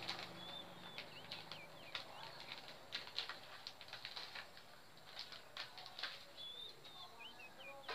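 Small caged prinia (prenjak) moving about, with many faint sharp clicks and flutters, and giving two short runs of quick, high, curving chirps.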